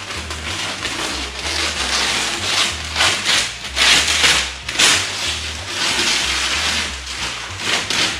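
Masking paper and tape being torn off a freshly painted car body: paper crackling and ripping in uneven pulls, loudest about three to five seconds in.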